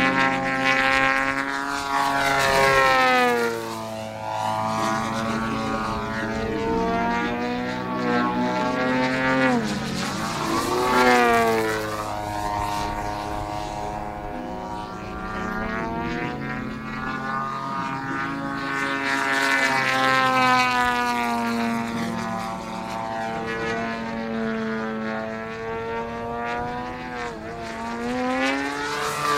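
Pilot-RC Laser 103-inch aerobatic model plane's GP 123 petrol engine with MTW tuned pipes, running throughout. Its pitch swings up and down with the throttle, with sharp dips and rises as the plane passes around four, ten and twenty-eight seconds in.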